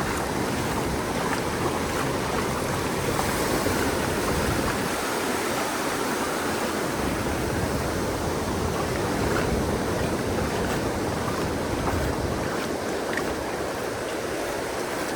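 Ocean waves breaking and washing up on a sandy beach: a steady surf wash with an uneven low rumble.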